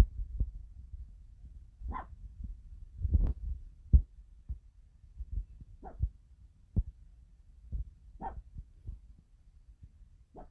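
A dog giving short, low barks or woofs, about five of them spaced a second or two apart, with soft low thumps in between, reacting to an intercom chime.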